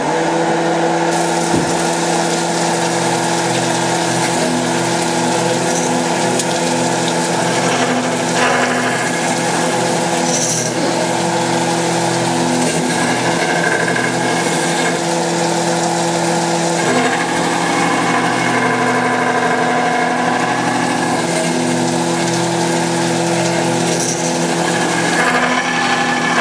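RP330 resurfacing machine running, its rotating cutting head hand-fed across the deck of a Ford Transit / Citroen Relay 2.2 TDCi cylinder block with coolant water pouring onto the cut. It makes a steady motor hum with a few steady tones under a continuous hiss of cutting and water. The cutter catches the face only at some points, a sign that the block is warped.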